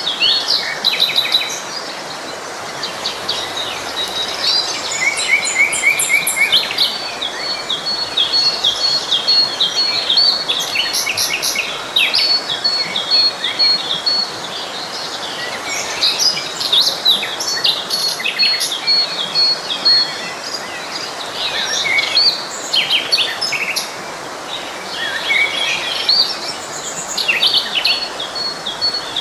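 Several songbirds singing and chirping over the steady rush of a forest stream, with a high, evenly pulsed note recurring several times.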